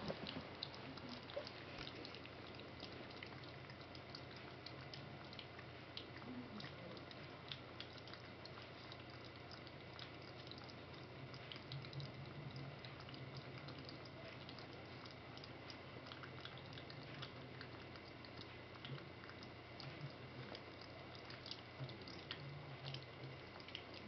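Young puppies lapping and smacking wet puppy mush from a bowl: faint, quick, irregular wet clicks and licks.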